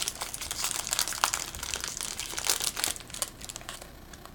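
Foil wrapper of a Yu-Gi-Oh booster pack crinkling as it is handled and opened. The crackling is dense for about three seconds, then thins to a few scattered crinkles.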